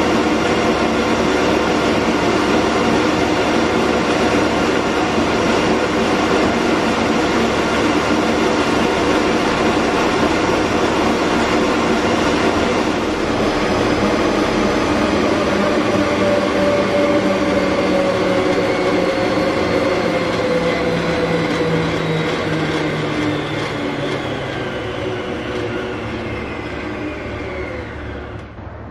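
Stand mixer's motor running at high speed, its balloon whisk beating Italian meringue in a stainless steel bowl to stiff peak after the sugar syrup has gone in. A steady mechanical whine and hum whose pitch slowly sinks through the second half, growing quieter over the last few seconds.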